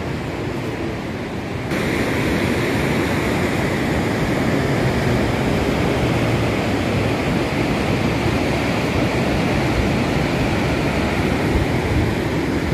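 Steady rushing of the fast, muddy Ganga (Bhagirathi) in flood, getting louder about two seconds in.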